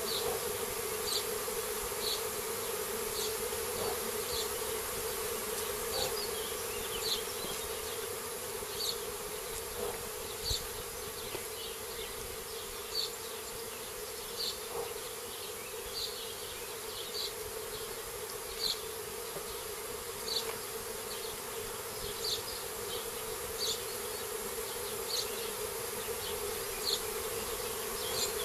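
A swarming honeybee colony buzzing steadily, the dense hum of thousands of bees flying around and settling on a trap hive. Short high chirps repeat roughly once a second over the hum.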